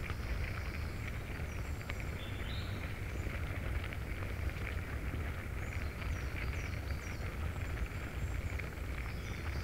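Wood ants crawling over their nest mound of conifer needles, picked up by a contact microphone: a dense, steady crackling rustle of fine ticks over a low rumble. A few short bird chirps come through faintly past the middle.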